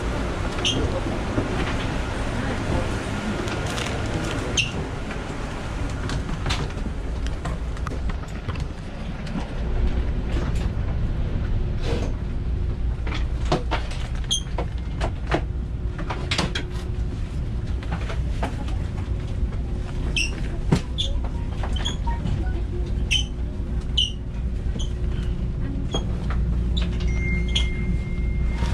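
Inside a KTX high-speed train carriage: a steady low hum of the train's cabin, with scattered clicks and knocks of footsteps and luggage as passengers board and move down the aisle. A short high tone sounds near the end.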